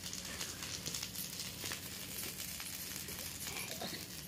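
Faint, steady crackling hiss from a wood cooking fire with a pan over it, with small clicks scattered through. Soft squishing as spiced potato mash is pressed into patties by hand.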